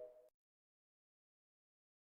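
Near silence: the faint tail of a fading tone dies away right at the start, then dead silence between clips.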